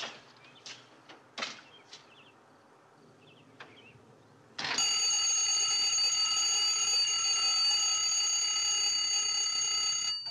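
Bedside alarm clock going off as a wake-up alarm: after a few faint clicks, it starts ringing suddenly about four and a half seconds in, a loud steady ring that cuts off abruptly after about five and a half seconds when it is switched off by hand.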